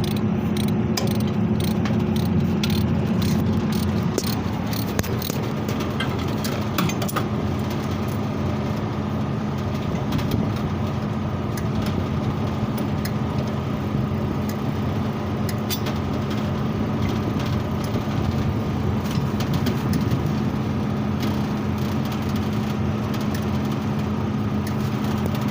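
Steady hum of running refrigeration machinery, with metal tool clinks and knocks that come thickest in the first several seconds and less often after.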